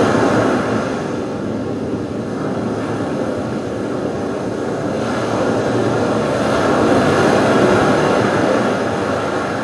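A dense, steady wash of rumbling noise with no clear beat or melody, swelling slowly and easing again near the end: an ambient noise soundtrack played for a stage dance.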